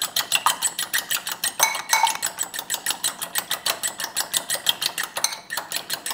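Raw eggs being whisked by hand in a bowl. The utensil clicks against the bowl in a fast, steady rhythm of about six or seven strokes a second.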